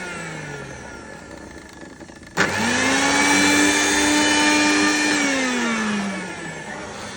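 Panasonic mixer grinder's motor spinning down with a falling whine, then switched on again with a sharp click about two and a half seconds in. It quickly rises to full speed, runs steadily for about three seconds, then winds down with a falling pitch near the end.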